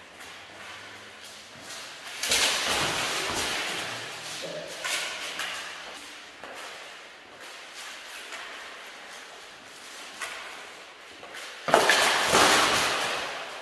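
Armoured fencers clashing at close quarters: mail shirts jingling and rattling, with thumps and clatter of strikes and grappling, in two loud flurries, about two seconds in and again near the end, and a few smaller clinks between.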